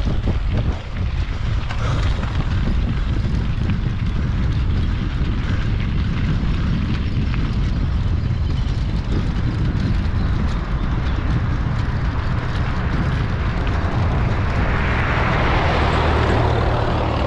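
Steady low engine rumble mixed with wind buffeting the microphone, swelling louder near the end as the vehicle draws close.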